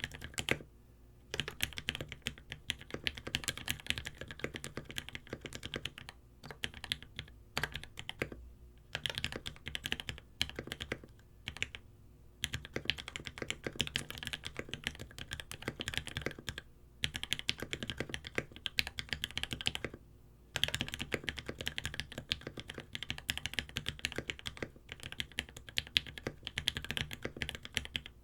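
Fast continuous typing on a Space65 custom mechanical keyboard with lubed H1 switches in an aluminium plate, capped with GMK Oblivion ABS keycaps. The keystrokes come as a rapid clatter of clicks, with short pauses every few seconds.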